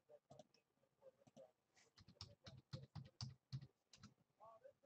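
Faint, irregular clicks and taps, coming thickest in a quick run through the middle.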